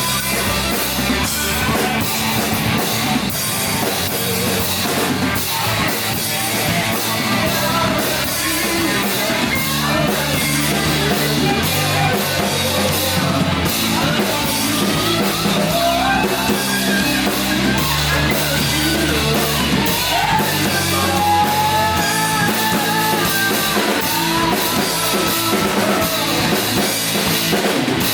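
Rock band playing live at full volume: electric guitars, bass guitar and a drum kit driving a steady beat, with a wavering melodic line over the top in the second half.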